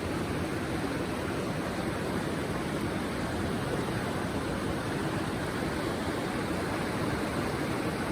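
Steady rushing of river water, an even noisy wash with no breaks.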